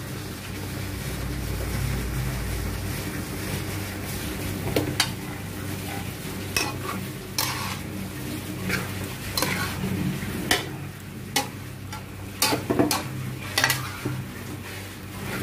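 Chicken frying and sizzling in a stainless steel pot while a metal spoon stirs it; from about five seconds in, irregular clinks and scrapes of the spoon against the pot.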